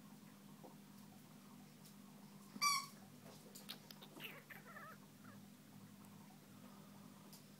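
A dog's squeaky toy ball, squeezed in a chihuahua's mouth, gives one short, sharp squeak about two and a half seconds in. Fainter, shorter squeaks follow over the next two seconds.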